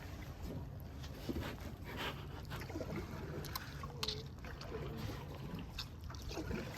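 Canoe paddles dipping and splashing in the water at an irregular pace over a steady low rumble, as the canoe is paddled along.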